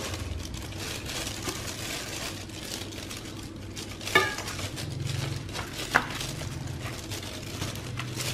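Plastic-gloved hands tossing and spreading a radish and beef salad on a ceramic platter, a soft rustle of glove and food, with two sharp clinks of dishware about four and six seconds in, the first ringing briefly. A steady low hum runs underneath.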